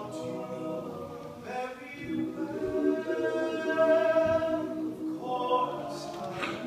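All-male a cappella group singing in harmony, one voice standing out above the others' held chords, swelling to its loudest about three to four seconds in.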